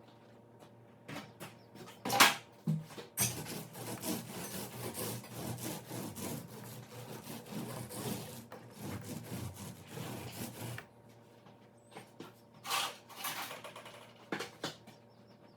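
Continuous rubbing and scraping over a wooden surface for about eight seconds, with a sharp knock before it and a few more knocks after it.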